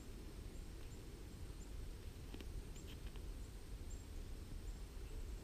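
Quiet snowy woodland: a faint steady low rumble of background noise, with a few faint, short high chirps and a couple of soft clicks.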